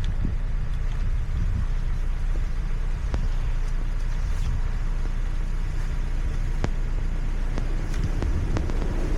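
Steady low road and engine rumble of a car driving on snow-covered roads, heard from inside, with a few faint ticks.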